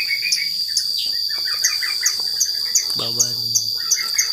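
Steady high-pitched insect drone with a regular chirp about four times a second, and a bird's quick chirping calls coming in short runs over it.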